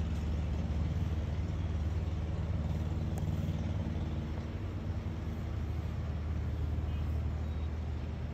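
Steady low rumble of a moving road vehicle heard from inside it: engine and road noise.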